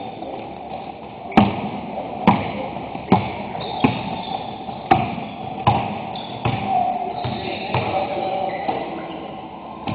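A basketball being dribbled on a hardwood gym floor: a run of sharp bounces, roughly one a second, that thin out near the end.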